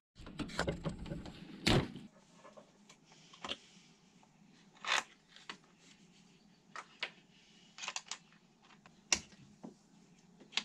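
Scattered clicks and light knocks of battery cables and terminal hardware being handled and fitted onto the posts of a bank of boat batteries, with a heavier thump about a second and a half in.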